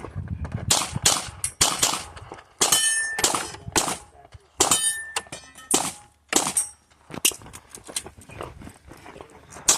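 Pistol fired in quick, irregular strings during a USPSA stage run, with steel targets ringing when hit; two of the hits leave a short ringing tone, about 3 and 5 seconds in.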